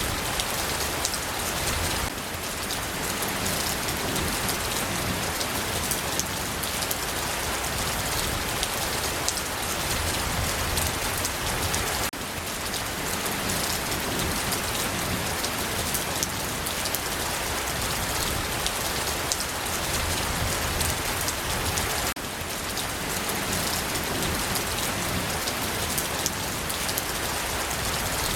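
Steady rain falling, with the patter of many individual drops striking a surface. The level dips slightly and suddenly about every ten seconds.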